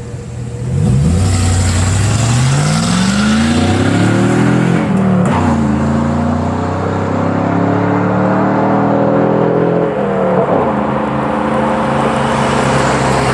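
Chevrolet Silverado 1500's 4.8-litre V8 exhaust under hard acceleration. The engine pitch climbs through a gear, drops at an upshift about 5 seconds in, climbs again, and shifts again about 10 seconds in before settling into a steady run.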